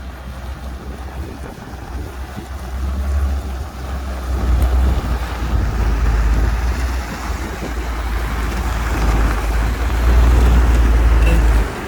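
Heavy earthmoving machinery running with a deep rumble, mixed with wind buffeting the microphone; it grows louder about four seconds in and drops off just before the end.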